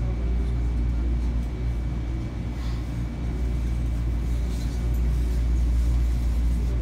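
Metro-North M7 electric multiple-unit car heard from inside while running: a steady low rumble of the running train, with a faint steady high whine.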